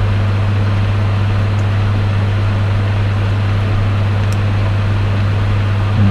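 Steady low electrical mains hum at about 100 Hz with a constant hiss behind it, unchanging throughout.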